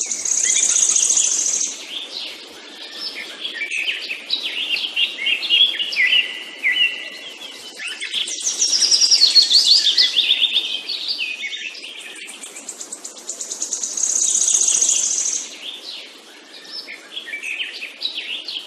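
Songbirds singing, several voices overlapping, with a louder phrase of high trills and falling notes coming back about every six seconds.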